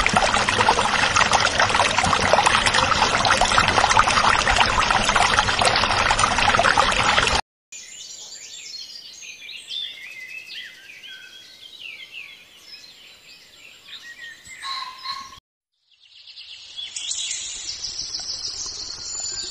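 Water gushing from a miniature hand pump's spout and splashing onto soil, a steady loud rush that cuts off abruptly about seven seconds in. After that, quieter bird chirping, with a short break of silence.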